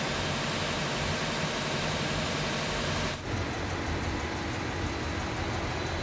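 Steady drone of running engine machinery in a ship's engine room, with a high hiss over it that drops away abruptly about three seconds in.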